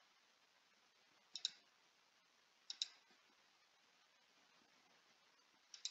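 Computer mouse clicking: three quick double clicks, about a second and a half apart, over near silence.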